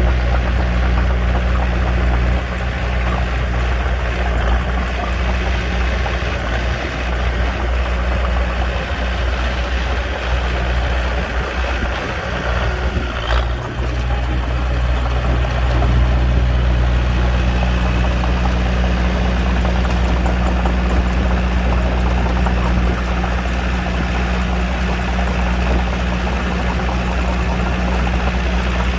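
Diesel engine of a Komatsu D21P mini crawler bulldozer running steadily under load with a low, even drone. A brief knock comes about halfway through.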